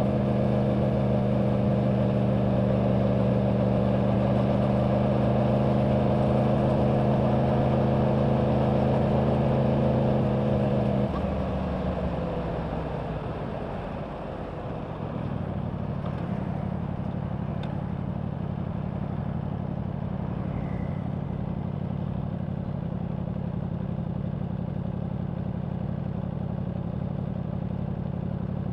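2024 Yamaha R1's crossplane inline-four engine on its stock exhaust, holding a steady note under throttle. About eleven seconds in, the throttle closes and the note falls away, then it settles into a quieter, lower steady note.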